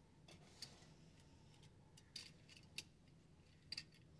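Near silence with a few faint, sharp clicks spread through it, two of them close together near the end.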